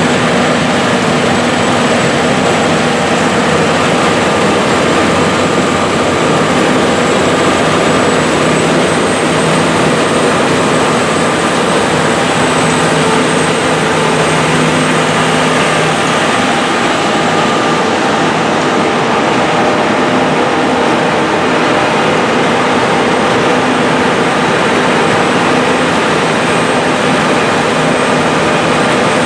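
John Deere S790 combine harvester running steadily while harvesting wheat: a constant engine and machinery drone with a thin, steady high whine.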